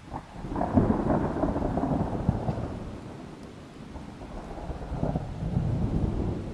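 Thunder in a thunderstorm: a sudden onset that builds into a long, deep rumble, eases off about three seconds in, then rolls back up in a second swell near the end, over rain.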